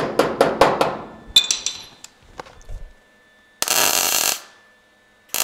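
A hammer tapping a sheet-metal patch-panel corner, about five quick taps a second, ending in one harder ringing strike, knocking the corner down tight so it doesn't pop up. About three and a half seconds in, a MIG welder crackles through a short tack weld of under a second, and a second tack starts just at the end.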